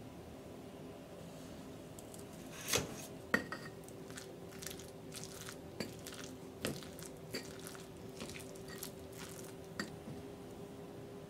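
Rice paddle stirring cooked rice in an earthenware kamameshi pot. There are a couple of knocks against the pot nearly three seconds in, then scattered soft scrapes and clicks that stop a little before the end.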